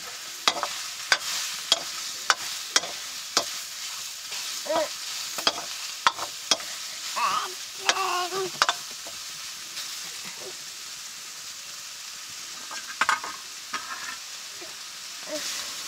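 Chicken frying and sizzling in a black iron karahi over a wood fire, while a metal ladle stirs it. The ladle scrapes and knocks against the pan in a run of sharp clinks through the first six seconds or so, then more sparsely, with a few more clinks near the end.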